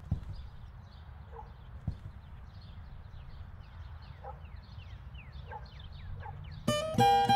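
Short downward-gliding chirps repeating a few times a second over a low steady rumble, with a single knock about two seconds in. Near the end, acoustic guitar music starts.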